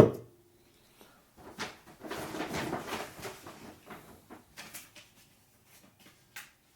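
A drink can set down with a sharp knock, then a couple of seconds of rustling and scattered small clicks and knocks as more drinks are handled and taken out of a bag.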